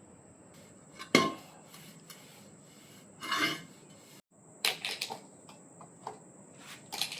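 Metal tools clinking, knocking and scraping during motorcycle tyre repair work, in separate bursts. The loudest is a single sharp knock about a second in.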